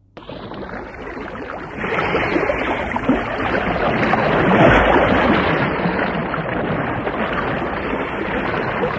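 Steady rushing noise of water, cutting in abruptly and growing louder about two seconds in.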